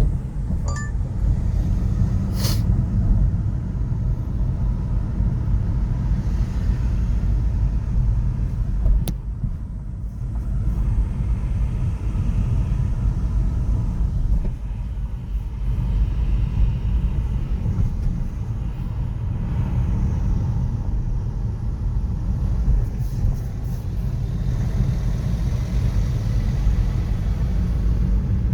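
City street traffic: a steady low rumble of passing cars and other vehicles, with a sharp knock about two seconds in and a fainter click about nine seconds in.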